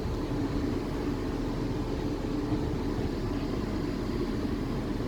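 Steady hum inside the passenger saloon of a South Western Railway Class 450 Desiro electric multiple unit, a constant low drone over an even rumble.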